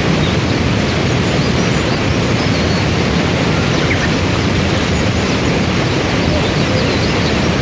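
Waterfall and river rapids rushing: a loud, steady roar of white water, with a few faint, short high chirps above it.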